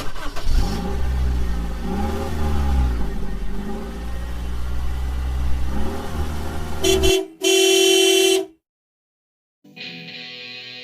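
Car engine running and revving, its pitch rising and falling, followed about seven seconds in by a car horn honking once for about a second. Guitar music starts near the end.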